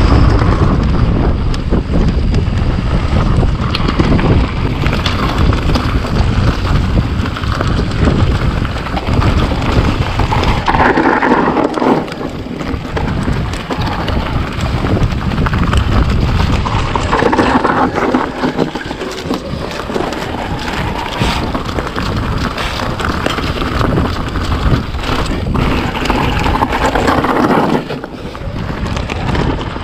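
Wind buffeting the microphone of a camera riding on a mountain bike, with knocks and rattles from the bike over rough trail, and three louder stretches of rushing noise.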